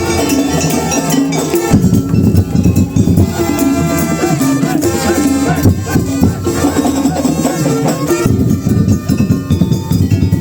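Madurese daul ensemble playing traditional music: dense, steady drumming under melodic lines.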